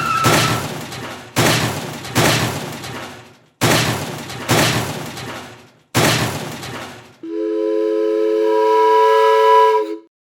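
Four crashing sound effects, each hitting suddenly and fading over about two seconds, then a steady multi-tone train horn chord held for about three seconds that cuts off abruptly.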